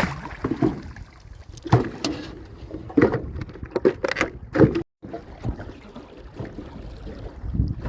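Irregular knocks, clatter and water sounds from prawn traps being handled on a small boat. The sound drops out for a moment about halfway through.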